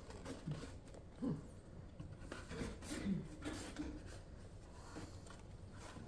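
Quiet room with a few short, faint vocal sounds, likely murmurs from people in the room, and some light clicks and rustles of handling.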